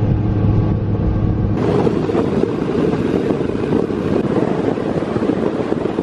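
Bass boat running at speed up the river: a steady outboard engine drone, and about a second and a half in a louder rush of wind and water takes over.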